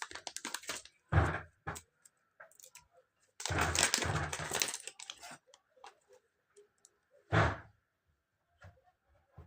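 Clicks and knocks from an MP-654K CO2 air pistol's parts being handled and worked on, with a longer noisy sound lasting over a second near the middle and a sharper knock later.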